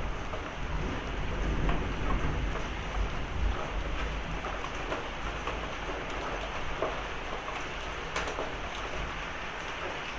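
Heavy rain pouring down in a severe thunderstorm, with the low rumble of thunder rolling on for the first few seconds and then dying away. Scattered sharp taps sound over the steady rain.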